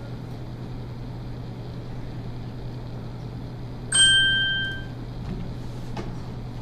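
A single bright bell ding about four seconds in, ringing out and fading within a second, over a steady low hum.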